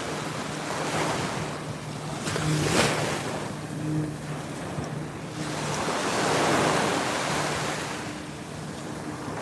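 Atlantic surf breaking and washing up the beach, swelling louder about three seconds in and again around six seconds in, with wind buffeting the microphone.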